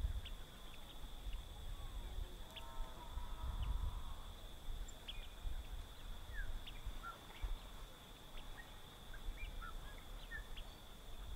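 Outdoor bird-and-insect ambience: a steady high insect drone runs throughout, with many short high bird chips scattered across it and a run of lower arched bird calls about two to four seconds in.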